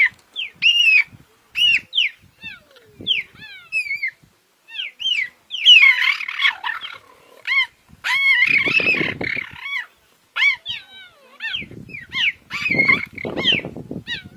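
Cheetahs chirping over and over in short, high calls, broken by harsher growling and snarling bursts as they scuffle, about six, nine and thirteen seconds in.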